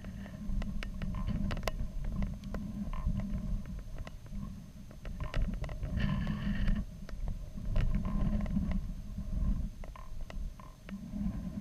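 Muffled low rumble from the balloon payload's onboard camera housing, with scattered sharp clicks and creaks as the payload moves. A brief higher-pitched tone sounds about six seconds in.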